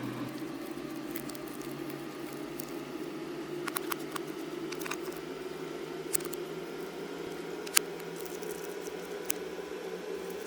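Slime being squeezed and worked by hand, a steady soft squishing with scattered sharp wet clicks and pops. The loudest pop comes just before eight seconds in.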